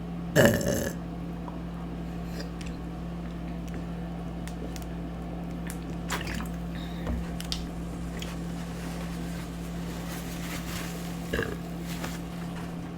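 Wet chewing and mouth sounds of someone eating General Tso chicken wings and rice, with one short loud sound about half a second in and a few soft clicks later. A steady low hum runs underneath.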